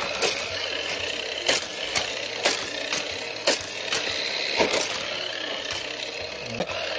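Motorized booster of a Hot Wheels Scorpion Sting Raceway toy track running with a steady whir, and die-cast toy cars clacking through it and around the plastic track about once a second.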